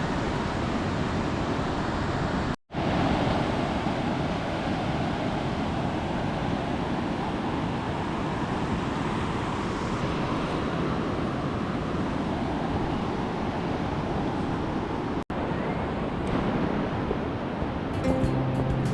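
Pacific Ocean surf breaking on a sandy beach, a steady rushing wash with some wind on the microphone, broken twice by brief gaps. Music comes in near the end.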